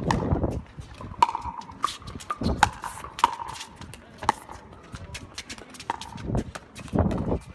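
Pickleball rally: paddles striking the plastic ball back and forth, a string of sharp pops about every half second to second. Gusts of wind buffet the microphone several times.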